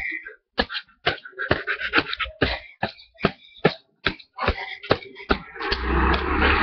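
Rapid repeated blows of a wooden cricket stump on a Big Bird toy, about three whacks a second. Near the end they give way to a loud, sustained, rough noise.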